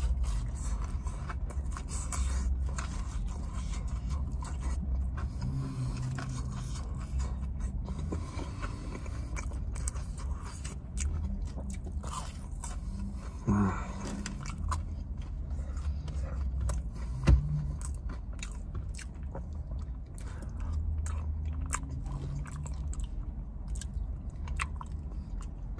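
Close-miked mouth sounds of a person biting and chewing fried chicken tender, crinkle-cut fries and mac and cheese: many small wet clicks and crunches. A brief hum about halfway through, and one sharp knock a few seconds later.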